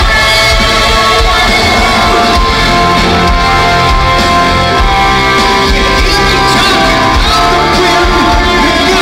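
A rock band playing live on stage, loud and steady, through a concert hall's sound system.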